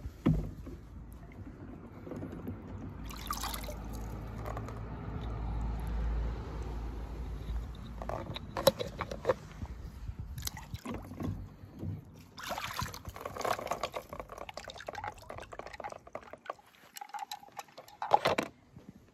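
Water sloshing and dripping as a hand moves toy cars about in a shallow plastic pool and lifts them out. This is followed by light clicks and knocks of the plastic toy cars being set down in a plastic tub, with a louder knock near the end.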